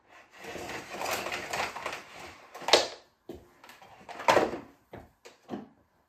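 Bosch BGS21X320 bagless canister vacuum's power cord reeling back into the cleaner: a rattling whirr for about two and a half seconds that ends in a sharp clack. A louder knock follows about a second and a half later, then a few light knocks as the cleaner is handled.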